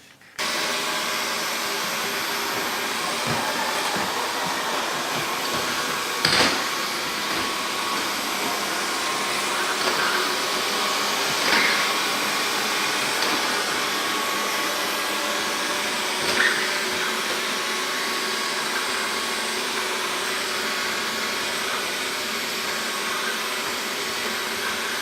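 Xiaomi Mi robot vacuum cleaner running: a steady suction-motor hum with a faint whine that comes on suddenly about half a second in. Three brief knocks stand out over it, about five seconds apart.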